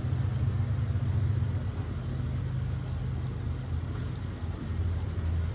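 Steady low rumble of background noise with no speech.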